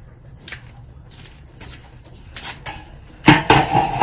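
Weber Ranch Kettle's enameled steel lid being lifted off the grill: a few light clicks, then a couple of loud metal clanks about three and a half seconds in, with the lid ringing briefly afterwards.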